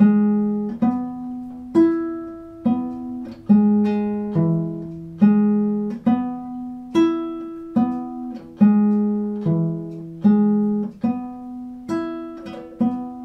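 Bass viol played pizzicato: the F major arpeggio plucked note by note, up and down, about one note a second, each note starting sharply and ringing as it fades.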